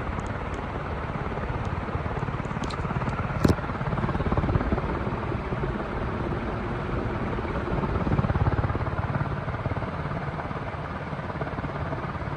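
1978 CEC industrial ceiling fan running at full power: a steady rush of air from its aluminum blades with a fluttering low rumble that swells twice. A single sharp click about three and a half seconds in.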